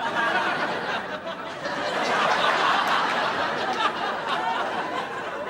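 Studio audience laughing, breaking out suddenly out of quiet and carrying on.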